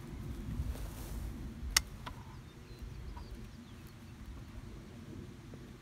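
A sharp click of a screwdriver against the wooden bee package box a little under two seconds in, followed by a couple of fainter clicks, over a steady low noise.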